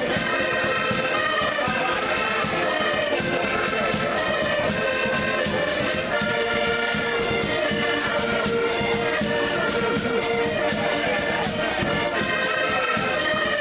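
Several diatonic button accordions playing a lively traditional tune together, with a drum keeping a steady beat.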